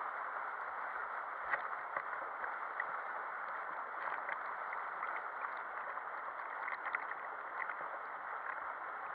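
Water rushing and churning around a rider sliding down a plastic water slide tube, a steady hiss with a few small scattered knocks.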